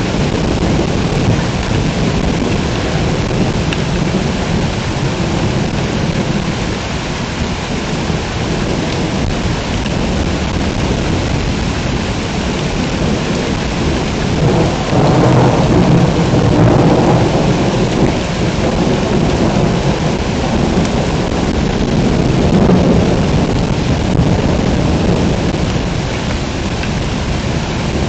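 Heavy rain pouring steadily during a thunderstorm. A long roll of thunder swells up about halfway through, and a smaller rumble follows a few seconds later.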